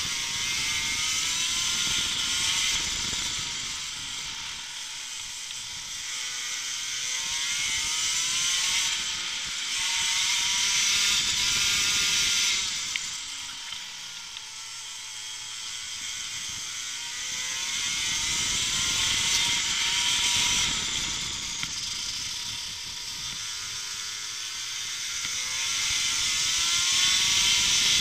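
Racing kart engine at full race speed, its pitch climbing steadily on each straight and dropping away into the corners, three or four times over.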